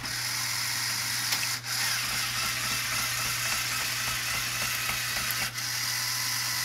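Lego Technic tank running on its single XL Power Functions motor: a steady whirring of the motor and plastic gears, with the rattle of the plastic tracks. The sound dips briefly twice, about a second and a half in and again near the end.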